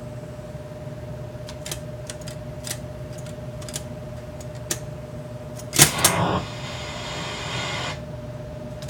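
Drop targets on a Stern Meteor pinball machine pushed down by hand, a few light clicks one after another; about six seconds in the target bank resets with a loud clunk and the sound board plays a short electronic noise for about two seconds, the only sound the faulty sound system produces. A steady faint hum runs underneath.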